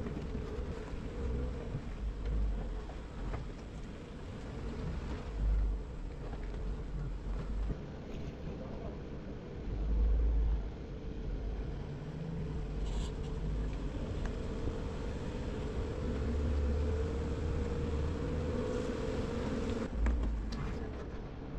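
Jeep engine running steadily with a constant hum, and several short low rumbles of wind hitting the microphone.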